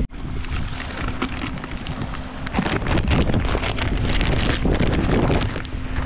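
Gusty wind buffeting the microphone with a low rumble and crackle, over small waves lapping on a lake shore.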